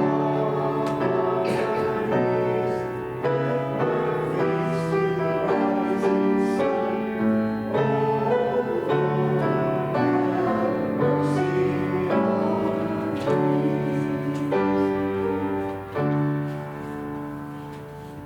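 Slow instrumental keyboard music in a church: held chords changing about once a second, dropping in level near the end.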